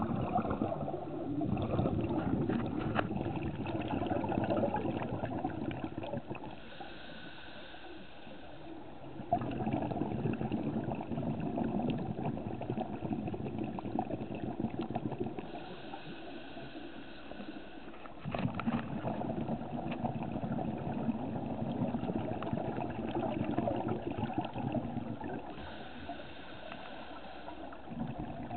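Scuba diver breathing through a regulator underwater: long bubbling exhalations alternating with shorter, quieter hissing inhalations, about three breaths in a slow, even rhythm.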